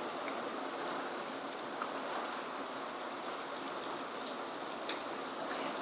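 Rain pouring down in a steady hiss, with faint drips of water leaking in around a window whose rubber seal seems not to be keeping it out.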